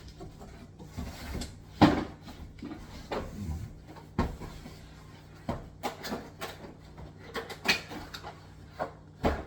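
Hard plastic parts and packaging being handled: scattered clicks, knocks and rubbing, with a sharp knock about two seconds in and another near the end.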